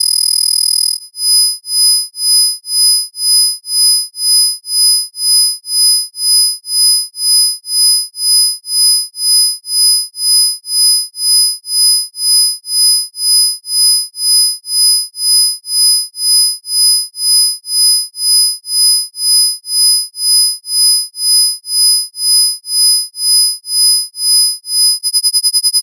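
Electronic isochronic tones: a chord of pure sine tones, strongest near 5,000 Hz and 10,000 Hz, with fainter tones between about 1 and 3 kHz. About a second in, the held chord starts pulsing on and off about one and a half times a second, and near the end the pulsing becomes much faster.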